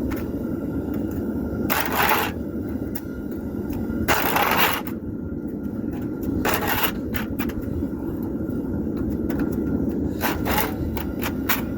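Hand wood saw rasping across hot steel in separate strokes: a few long scrapes, the loudest about four seconds in, then a quicker run of short strokes near the end, over a steady low rumble. The teeth are struggling to start the cut.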